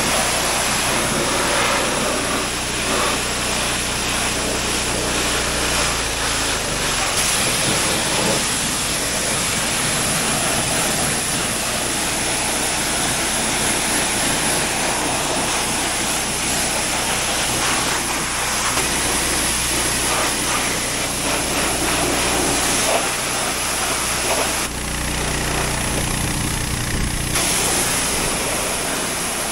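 Gas-engine pressure washer running steadily while its high-pressure spray hisses and spatters against a garden tractor's body and seat. The engine note shifts about six seconds in, and near the end the spray hiss drops away for a couple of seconds while the engine keeps running.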